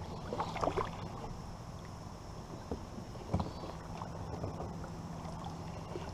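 Small fishing boat moving across the river: a faint steady low hum with light splashes of water, and a single knock against the hull about three and a half seconds in.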